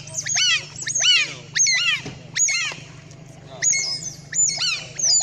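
Otters calling: a run of short, high, squeaky chirps, each sharply rising then falling in pitch, coming one to three a second. A steady low hum runs underneath.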